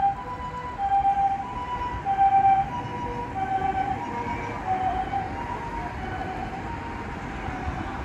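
Japanese ambulance's electronic two-tone hi-lo siren, alternating a higher and a lower note about every half second. It drops slightly in pitch and fades as the ambulance passes and moves away, over road noise.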